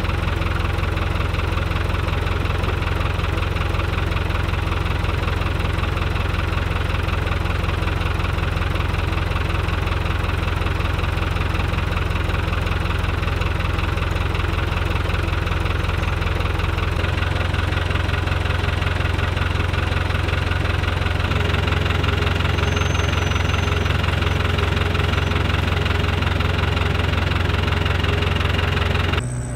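New Holland L85 tractor's diesel engine idling steadily.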